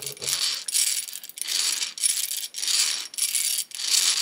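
Stanley Yankee No. 1530AX hand drill on its left-hand ratchet setting, the crank worked in short strokes so the ratchet clicks in quick rattling runs, about three runs every two seconds.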